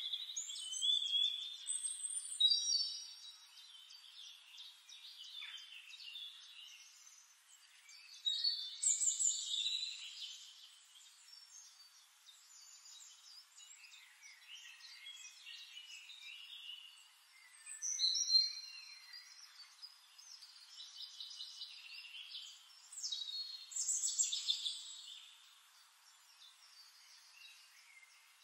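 Recorded birdsong from a nature-sound track: several songbirds chirping, whistling and trilling together, in louder bursts a few seconds apart with quieter twittering between. The recording sounds thin, with no low sound under the calls.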